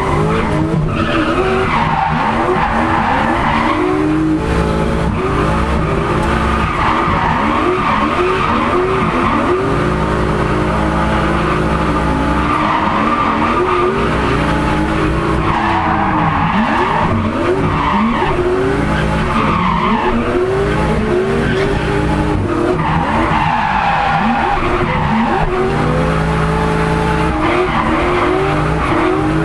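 Turbocharged 1UZ-FE Lexus V8 in a Nissan 200SX drift car, heard from inside the cabin, revving up and down again and again through a drift run and held steady at times, with tyres skidding and squealing.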